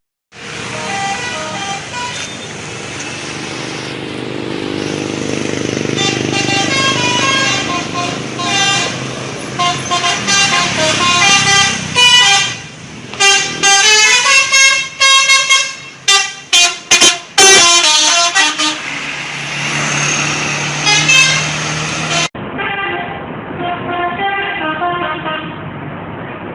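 Indonesian 'telolet' multi-tone bus horn playing short tunes of several notes, with a run of quick short toots about two-thirds through.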